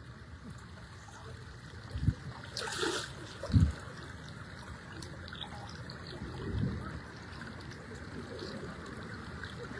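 Floodwater flowing in a strong current with a steady rushing noise. There is a splash about three seconds in and a few dull low thumps.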